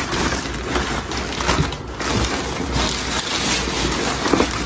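Plastic packaging crinkling and rustling as it is handled.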